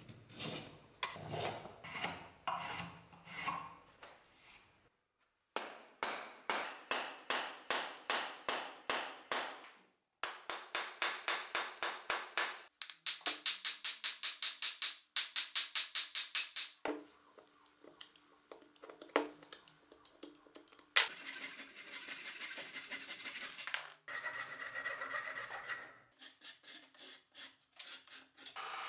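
Hand tools shaping a walnut hammer handle in a vise: repeated scraping strokes, two to three a second, as a blade shaves the wood and a rasp files it, in short runs that start and stop abruptly. About two-thirds through there is one sharp knock.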